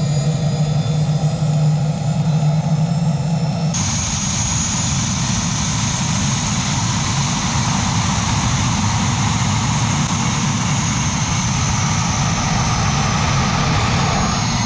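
Small turbojet gas generator of a homemade turboshaft engine running into a turbine scroll, first with a steady low drone. About four seconds in it changes suddenly to a loud roar with a high turbine whine, as flame blows out of the scroll's outlet. The builder blames the nozzle ring, which he says cannot pass the exhaust flow.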